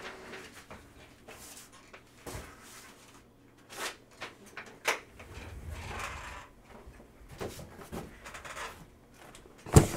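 Scattered handling noises, short knocks and rustles, with one loud thump near the end.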